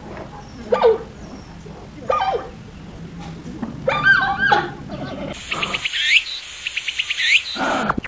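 Giant panda calls: short whining bleats that bend up and down in pitch, about one every second and a half. Near the middle they give way to a quick run of chirps and rising squeaks.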